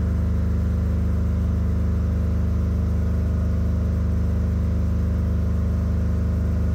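Steady low mechanical hum of a running engine, holding one pitch with a fine even pulse.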